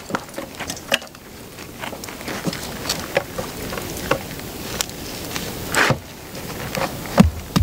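Campfire crackling, with scattered small wooden knocks as a sharpened stick is worked upright into the ground; near the end, low thumps begin as the wooden stake is pounded in.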